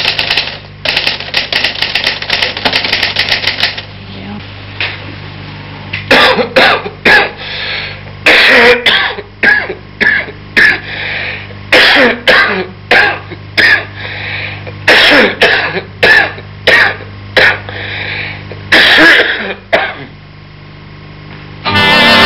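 Typewriter keys clattering fast for about four seconds. Then, after a short pause, a long regular series of short harsh coughs, roughly one every two-thirds of a second. A steady low hum runs underneath throughout.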